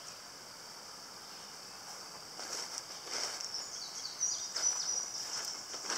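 Summer woodland ambience: a steady high insect drone with a few short bird chirps about four seconds in. From about two and a half seconds, footsteps swish through grass and brush.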